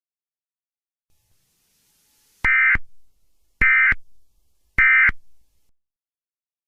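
Emergency Alert System end-of-message signal: three short bursts of SAME data tones, a little over a second apart, marking the end of the alert broadcast.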